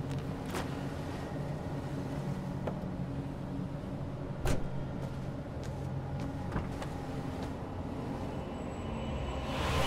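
Car doors of a Toyota RAV4 being worked over a low steady hum: a few light clicks and knocks of handling, the rear door shut with a thump about halfway, and a heavy door slam right at the end as the driver's door closes.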